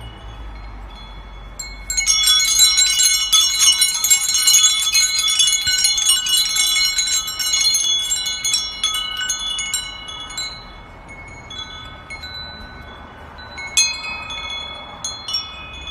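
Metal chimes tinkling: many ringing high tones struck in quick succession. They are densest for the first several seconds, thin out, and come again in a smaller flurry near the end.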